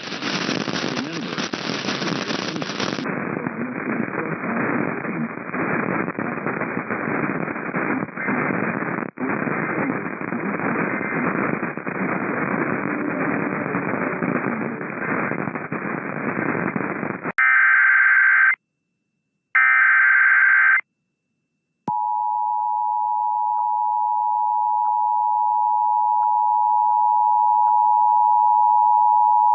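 Crackling static hiss for about seventeen seconds, then two short screeching data bursts of an EAS SAME header, then the steady two-tone EAS attention signal, which starts about 22 seconds in and slowly grows louder.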